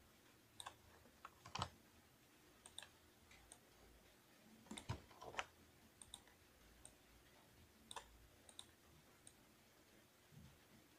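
Faint, irregular clicks of a computer mouse and keyboard being worked, a dozen or so, with louder ones about one and a half and five seconds in.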